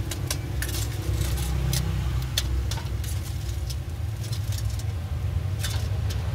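Metal tongs clinking and scraping against a perforated steel spider skimmer as a fried pempek is turned and lifted over the wok: a handful of short sharp clicks, most in the first couple of seconds, over a steady low rumble.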